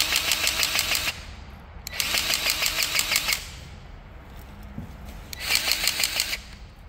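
Battery-powered grease gun pumping in three bursts of about a second each, a fast rattling clatter, as grease is forced into an H-link bushing fitting.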